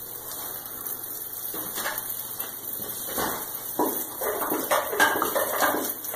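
Hand-held spray wand on a hose spraying liquid up onto wooden joists: a watery hiss with irregular spatter and clatter, louder from about halfway through.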